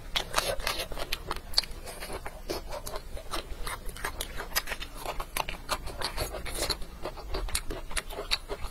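Close-miked chewing: a person chewing a mouthful of food, with many quick wet clicks and small crunches.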